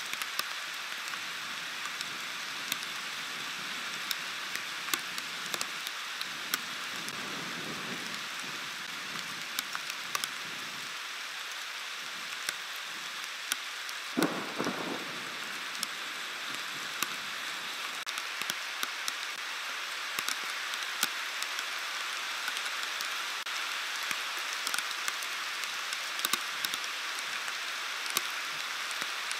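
Heavy rain pouring steadily on the exposed stork-nest webcam, a constant hiss dotted with many sharp clicks of drops striking close to the microphone. A single brief thump about fourteen seconds in.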